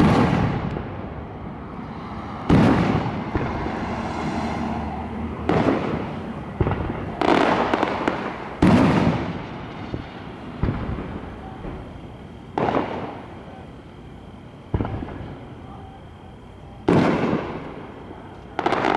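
Aerial fireworks shells bursting overhead one after another, about ten loud bangs at irregular intervals of one to two and a half seconds, each trailing off in a fading echo.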